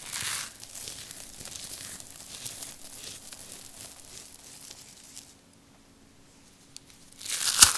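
Dry, crisp recycled soap being crushed and crumbled by hand: a crackling crunch at the start, then a quieter gritty trickle and patter of crumbs falling onto a pile of soap shavings. After a short lull there is a loud crunch near the end.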